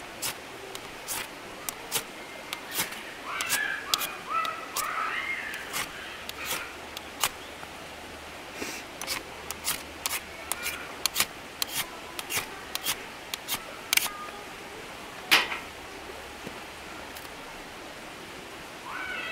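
Irregular sharp snaps and clicks of kindling and paper being handled while a campfire is being laid to light.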